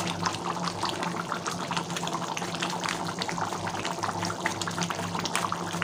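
Thick chicken curry gravy boiling in a steel kadai, bubbling with a dense run of small pops and plops over a steady low hum.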